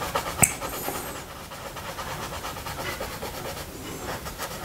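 Close-miked tongue licking buckwheat honey off a small glass plate, soft wet mouth sounds, with one sharp click about half a second in.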